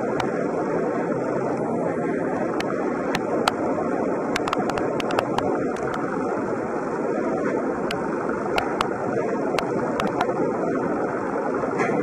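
Steady running noise of dairy-shed machinery, with scattered sharp clicks and knocks over it.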